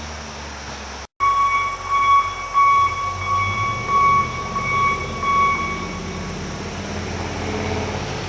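After a cut about a second in, a loud rumbling vehicle with a steady high-pitched whine, which fades out about six seconds in.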